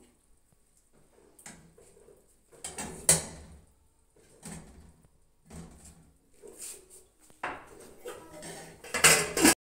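A metal spoon scraping and clinking against a frying pan as cooked saag is scooped out, in several separate scrapes and knocks, the loudest near the end.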